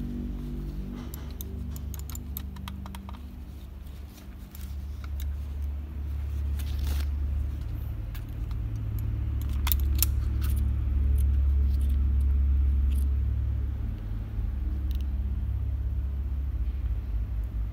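Scattered small plastic clicks and rustling from a wireless mouse and a plastic bag being handled as the mouse's USB receiver is pulled out. Under them runs a steady low rumble that swells in the middle.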